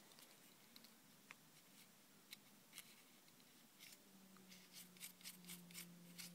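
Near silence: faint small clicks from a plastic CD transport mechanism being handled, with a faint steady low hum starting about two-thirds of the way in.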